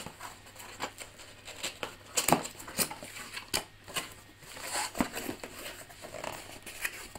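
Small cardboard box being opened by hand: flaps pulled apart and handled with irregular cardboard cracks, scrapes and rustles, the sharpest crack about two seconds in.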